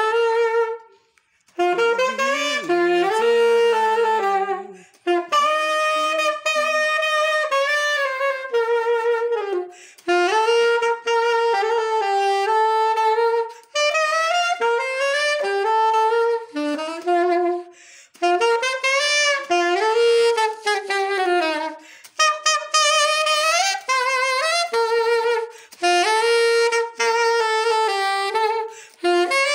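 Solo saxophone playing a slow, lyrical melody in phrases of a few seconds, with short pauses for breath between them and vibrato on some held notes.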